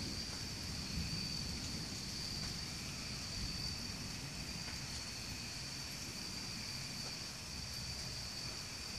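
Steady, high insect trilling in two unbroken bands, heard through rain during a thunderstorm, with a low rumble of thunder underneath.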